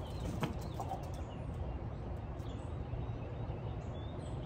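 Outdoor ambience: a steady low rumble with a few faint bird chirps over it, and a single short click about half a second in.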